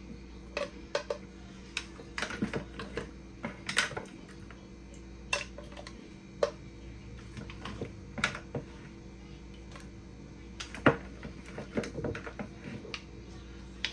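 Spoon clicking and scraping against cookware in irregular strokes while scooping through a seafood boil, with one louder clink about eleven seconds in.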